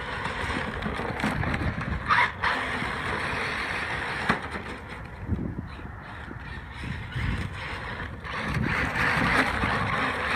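Carisma M48 Porsche 959 radio-controlled car driving through snow: its motor and gears whining, swelling and easing with the throttle, with a brief sharper whine about two seconds in. The owner thinks the gear mesh sounds a bit off.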